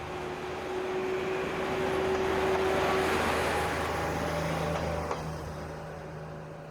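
KiHa 40 diesel railcar running past, its engine drone and wheel noise swelling to the loudest about three seconds in, then fading away.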